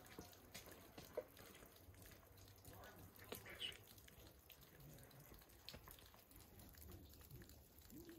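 Near silence: faint background with a few scattered small clicks and one brief high chirp.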